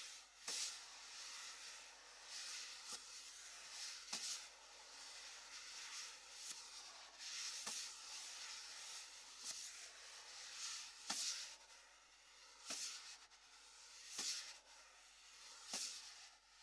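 Wire brushes played on a snare drum: a soft, quiet swishing from brushes swept across the head, with light taps at uneven intervals of a second or two.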